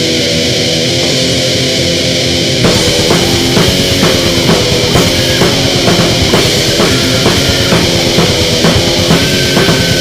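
Grindcore band playing a heavily distorted electric guitar riff. The full drum kit comes in just under three seconds in and pounds out an even beat of about three hits a second.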